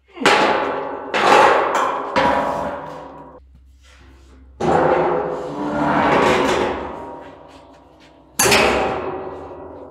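Steel pallet rack beam being struck to seat it on its upright: five hard strikes, each leaving the steel ringing for a second or more.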